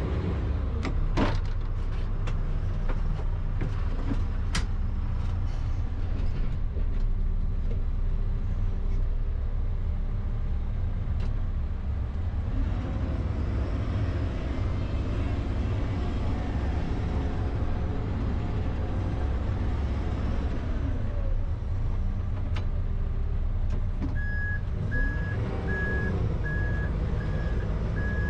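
John Deere 310SL loader backhoe's 99 hp diesel engine running under load as it works, with a few sharp metal clanks early on and engine pitch rising and falling in the middle. Near the end its reversing alarm starts a steady, evenly spaced beeping.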